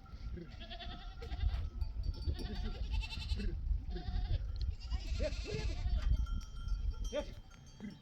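A mixed flock of goats and sheep bleating again and again, the calls overlapping, over a steady low rumble of wind on the microphone.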